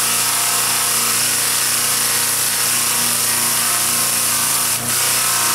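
Flap sander spinning on a bench motor with a carved wooden head pressed against it: a steady motor hum under an even sanding hiss of wood on abrasive, easing briefly near the end. It is sanding burn residue off the carving's ridges.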